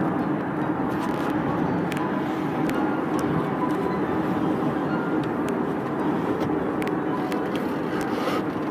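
Steady road and engine noise inside a moving car, with a few faint clicks and rattles.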